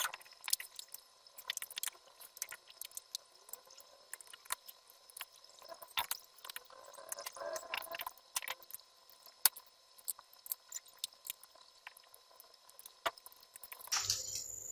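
Scattered small clicks and taps of tools and small plastic and metal laptop parts being handled during disassembly. Near the end a steady low hum comes in.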